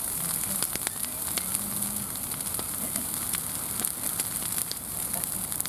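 Wood fire crackling, with frequent sharp pops over a steady hiss.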